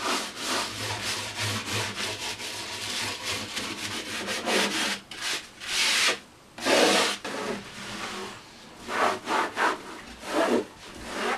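Scrubbing on the plastic grille cloth of a Marshall combo amp cabinet: quick, continuous back-and-forth rubbing strokes for about five seconds. After that come slower, separate wiping strokes as a cloth works the foam cleaner off.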